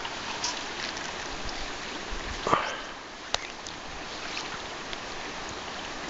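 Steady rush of river water. A short, louder sound comes about two and a half seconds in, and a sharp click follows just under a second later.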